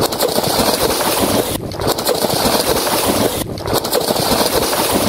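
Water rushing and splashing against the side of an outrigger fishing boat, mixed with wind buffeting the microphone. The sound drops out for a split second twice.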